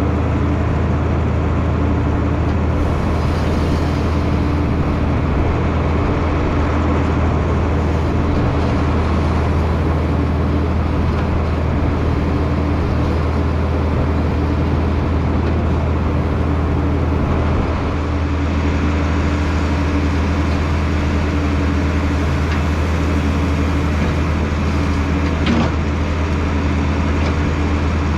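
John Deere 4240 tractor's six-cylinder diesel engine running steadily while it powers the feed mixer wagon.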